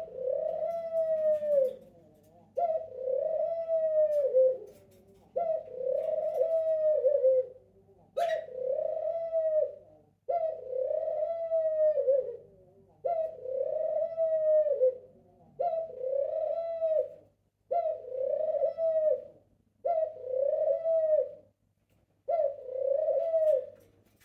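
Male pied ringneck dove calling out to its mate, repeating its coo about every two and a half seconds, ten times over. Each call is a short note followed by a longer rolling coo.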